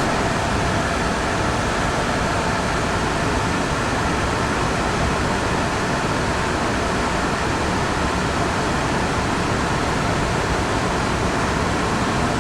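Steady noise inside a CRRC-built MBTA Orange Line subway car, an even hiss and rumble with no breaks or impacts.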